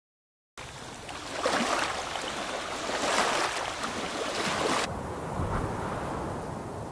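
Sea waves washing onto a shore, surging three times. About five seconds in the hiss cuts off sharply, leaving a duller, quieter rush.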